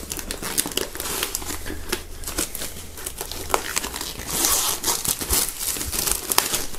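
Clear plastic shrink-wrap film crinkling and tearing as it is slit and pulled off by hand, a dense run of crackles.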